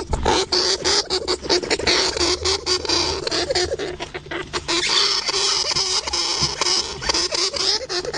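Pet hamster scrabbling and rustling, with rapid, irregular clicks and scratches and faint little squeaks.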